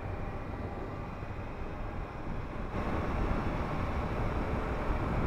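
Suzuki GSX650F motorcycle's inline-four engine running as the bike rides along, with wind rushing over the microphone. The noise grows louder from about halfway through.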